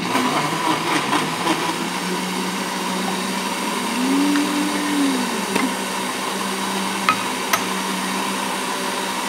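Electric countertop blender switched on abruptly and running steadily, blending dragon fruit with flaxseed milk into a smoothie. Two sharp clicks come about seven seconds in.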